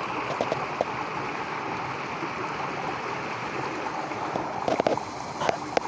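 Pond water gushing out under strong pressure into a brick-lined channel: a steady rush of churning water. A few short knocks come near the end.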